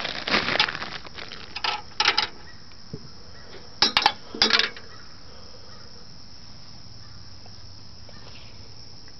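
Gumballs being dropped into a vintage "Master" gumball machine, clattering and clinking in quick bursts over the first two seconds and again about four seconds in.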